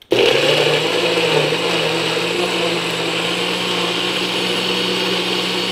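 NutriBullet blender switched on and running steadily at full speed, blending leafy greens, fruit and seeds into a thick drink. It is a loud, even motor noise that starts abruptly, and the speaker calls it "a little noisy".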